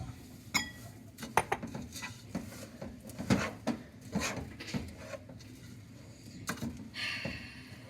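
A spoon stirring Rice Krispies cereal into melted marshmallow in a pot, scraping and knocking against the pot at irregular moments.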